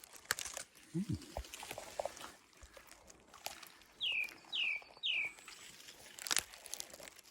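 Three short, falling bird calls about four to five seconds in, over scattered clicks and rustles of gorse being handled. A short low grunt about a second in.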